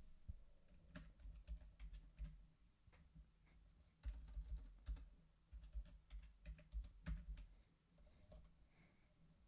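Faint, irregular clicking of typing on a computer keyboard, with dull low thumps under the keystrokes, busiest in the middle of the stretch.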